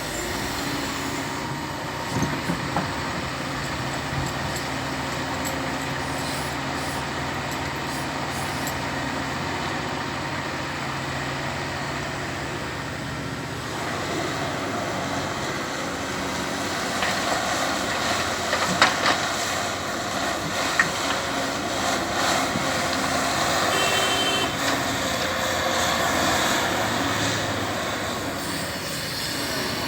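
Heavy diesel earthmoving machinery running steadily under load. The engine note changes about halfway through, and a few sharp knocks follow in the second half.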